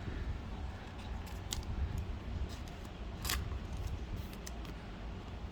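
Trading cards being handled: a few light clicks and a short scrape of card stock about three seconds in, over a steady low hum.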